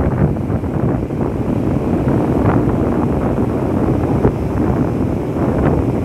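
Wind buffeting the microphone over the steady rush of ocean surf breaking on a sandy beach.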